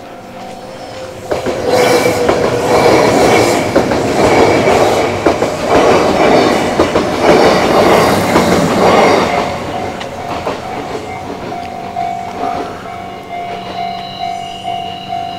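A Kintetsu Minami-Osaka Line train runs past over a level crossing, its wheels clattering on the rails for about eight seconds. The crossing's warning bell keeps dinging in a steady repeating rhythm, heard on its own once the train has gone by.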